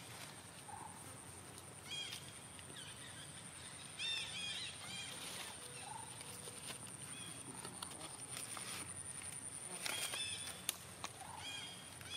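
Outdoor animal calls: short, high-pitched chirps in small clusters every second or two, over a thin steady high tone.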